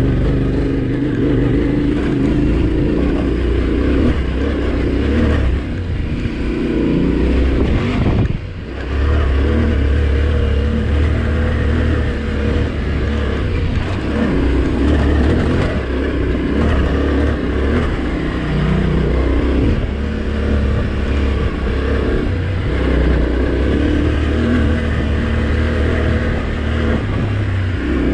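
Yamaha Ténéré 700's 689 cc parallel-twin engine running as the motorcycle is ridden over gravel, the throttle rising and easing off, with a brief dip about eight seconds in.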